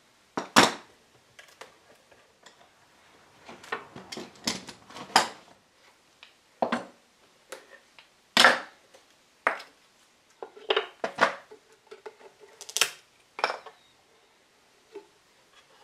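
Small bar clamps and spring clamps being released from a glued wooden box and set down on a workbench: a dozen or so sharp metal clicks and clatters with short pauses between them, the loudest about half a second in and near the middle. The glue has set and the clamps are coming off.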